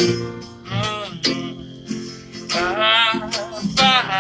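Acoustic guitar strummed in a steady rhythm, with held, wordless sung notes over it between lines of the song.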